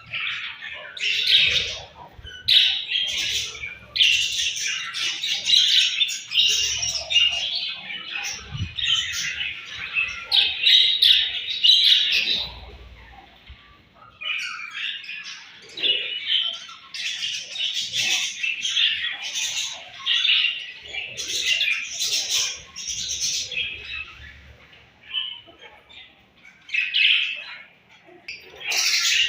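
A flock of budgerigars chirping and chattering in quick, overlapping calls, dropping off briefly about halfway through before picking up again.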